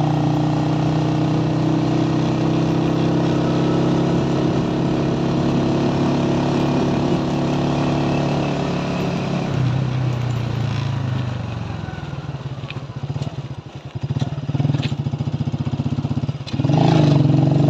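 Motorcycle engine running at a steady cruising speed. About ten seconds in, the throttle eases off and its note falls and quietens for a few seconds. Near the end the throttle opens again and the engine pitch climbs.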